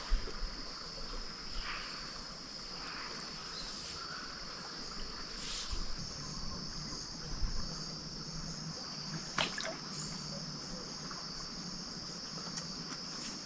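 Insects chirring in a steady, high-pitched drone, with a few faint clicks.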